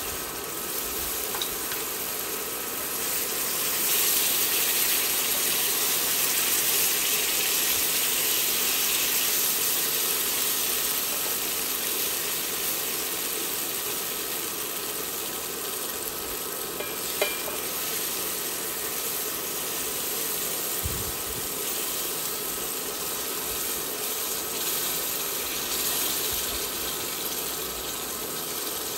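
A thickening sauce sizzling and bubbling in a hot skillet while liquid is ladled in and a silicone whisk stirs it: a steady hiss, a little louder a few seconds in. One sharp tap, the whisk or ladle against the pan, comes about two-thirds of the way through.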